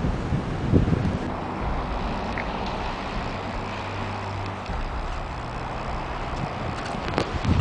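Outdoor street noise on a handheld camcorder's microphone: a steady rumble of wind and road traffic, with a low hum a few seconds in and a few short knocks near the end.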